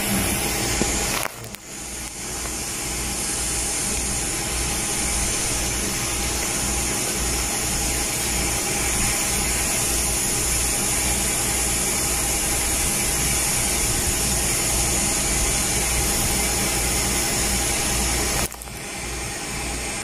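A steady rushing hiss with a pulsing low rumble under it. It drops away briefly about a second and a half in and again near the end.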